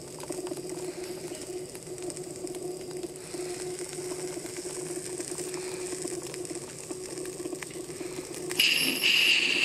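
Live-steam model K-36 narrow-gauge locomotive in 1:20.3 scale running slowly: a rapid, even ticking of its exhaust and running gear over a steady low hum. A louder, high-pitched sound comes in near the end.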